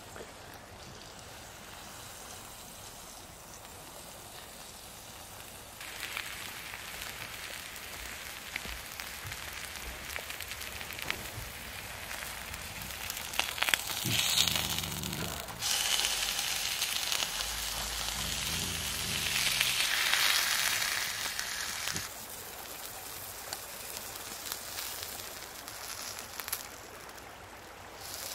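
Thick ribeye steak sizzling in a pan over a wood fire, a steady hiss. It grows louder about six seconds in and swells further in the middle stretch before easing back.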